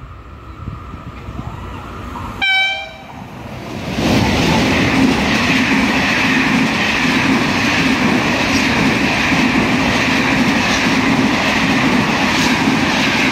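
ONCF passenger train approaching: a short horn blast about two and a half seconds in, then the train runs through the station at speed, its coaches passing close by with a loud, steady rolling rush of wheels on rail.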